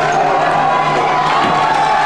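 Handball crowd shouting and cheering loudly, many voices at once, with high wavering tones running through it.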